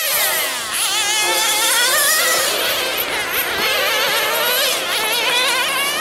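Several nitro RC sedans' small two-stroke glow engines buzzing at a high pitch as they race around the track. Their pitches overlap and keep wavering up and down as the cars accelerate and slow through the corners.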